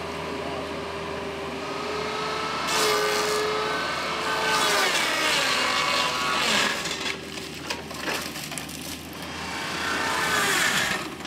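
Baumalight DXA530 excavator tree saw, its hydraulic-driven circular blade spinning and cutting through tree limbs: a steady hum from the blade that sags in pitch as it bites into the wood, with rough, hissing cutting noise during each of a few cuts, the loudest about three seconds in, around six seconds and near the end.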